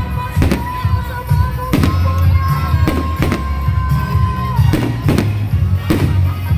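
Loud amplified music with a heavy bass and a long held note, with sharp bangs of fireworks going off through it every second or so.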